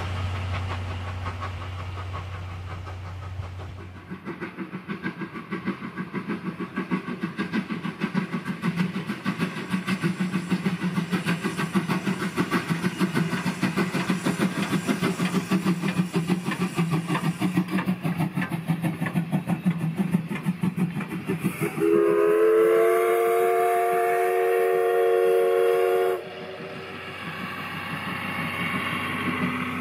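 Tobu Railway class C11 steam locomotive working hard with a train: rapid, even exhaust beats and rail clatter that grow louder as it approaches. Its steam whistle sounds a several-note chord for about four seconds, stops abruptly, and the beats carry on. At the start, a steady low hum fades out before a cut.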